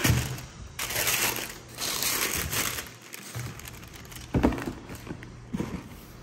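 Tissue paper crinkling and rustling as it is folded over sneakers in a cardboard shoebox, then two sharp knocks as the shoebox lid is put on.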